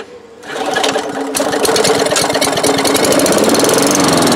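Old Craftsman 4.5 hp push-mower engine started on ether, since its primer is broken. It catches about half a second in and keeps running, quickly revving up to a steady fast run.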